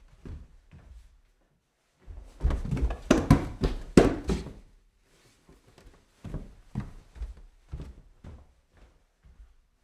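Footsteps climbing stairs: a run of heavy, quick steps a couple of seconds in, a short pause, then steadier steps about two a second, with pauses between runs.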